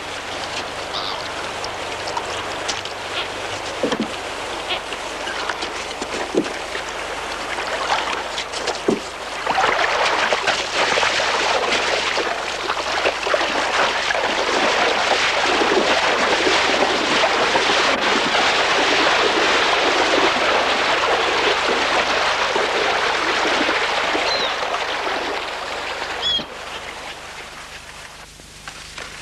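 Water splashing and rushing around a small wooden rowboat as it is pushed off the shore into the water, with a few knocks; the rush of water grows louder about ten seconds in. Gulls give a few short cries near the end.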